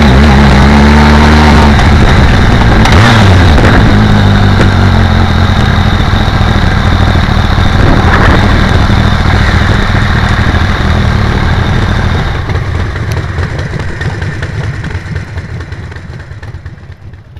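BMW K1200R Sport's inline-four engine running at low revs, with wind rush over the bike-mounted microphone. The engine note dips briefly about three seconds in, and the sound fades out over the last few seconds.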